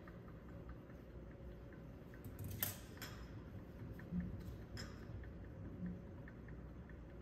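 Quiet lab room tone with faint ticking and a few light knocks and clicks from handling equipment on the benchtop. The loudest comes about two and a half seconds in, as a small metal mesh sifter is set down, with smaller clicks around four and five seconds in.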